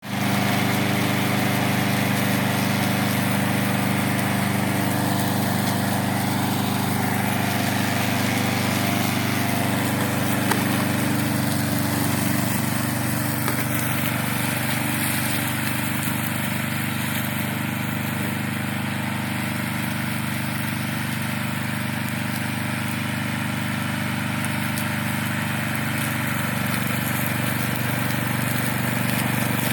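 Gasoline engine of a Vigorun VTLM800 remote-controlled tracked mower running steadily at working speed.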